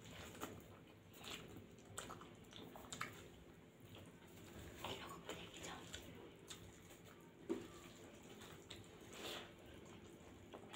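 Faint wet eating sounds: fingers squishing and mixing rice with lentil dal and greens on steel plates, with chewing and lip smacks, as a scattering of small irregular clicks and smacks; the sharpest smack comes about seven and a half seconds in.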